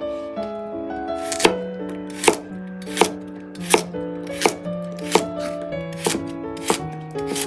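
Chef's knife slicing carrot into quarter-rounds on a wooden cutting board: a sharp knock of the blade on the board about every three-quarters of a second, eight cuts in all. Soft piano music plays underneath.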